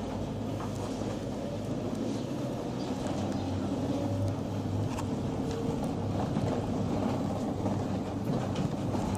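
Mercedes-Benz Sprinter minibus heard from inside the cabin while driving: steady engine and road rumble that grows slightly louder.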